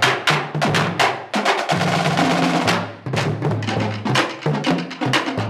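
High school marching drumline playing a fast cadence: dense snare strokes and stick clicks over pitched bass drum notes that move between pitches, with a brief drop-off about three seconds in.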